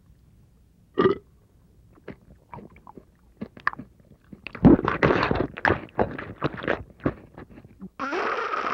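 A short throaty burp-like sound about a second in, then cereal being crunched and chewed noisily by a face pressed into the bowl, the crunching growing dense and loud from about halfway.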